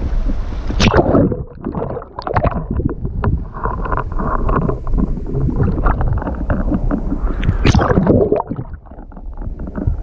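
Sea water sloshing and splashing in uneven surges, with wind buffeting the microphone in a constant low rumble.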